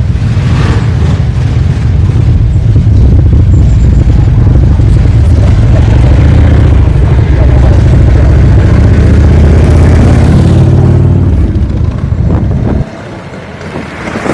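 Loud exhaust of a Harley-Davidson V-twin motorcycle running, a deep steady rumble with aftermarket mufflers, which cuts off abruptly about a second before the end.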